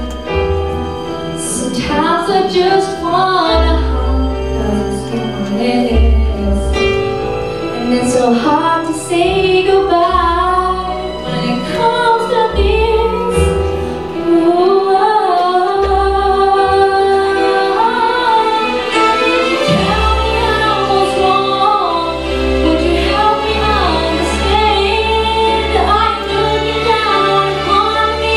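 A young woman singing a song into a handheld microphone over instrumental accompaniment with a steady low bass line.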